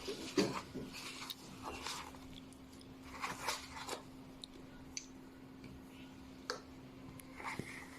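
Irregular small clicks, taps and rustles of things being handled, over a faint steady hum.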